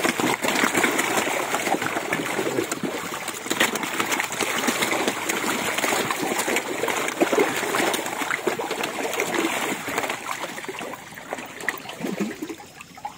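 Many toman (giant snakehead) fish splashing and thrashing at the water surface in a feeding frenzy. It is a dense, continuous churn of many small splashes that eases off near the end.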